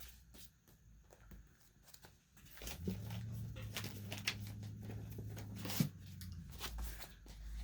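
Paper and envelopes being handled and shuffled, with scattered rustles and clicks. A low steady hum comes in about three seconds in and stops about three and a half seconds later.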